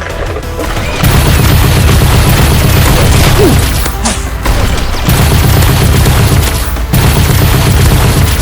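Loud background music with a heavy bass. It kicks in about a second in and drops out briefly twice.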